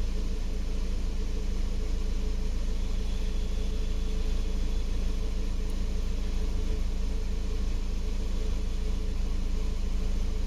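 Kia Sorento engine idling steadily, an even low hum.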